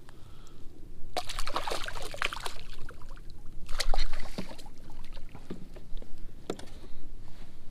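Water splashing and sloshing at a kayak's side as a small redfish is landed, in two bursts about a second and about four seconds in, followed by a few sharp knocks.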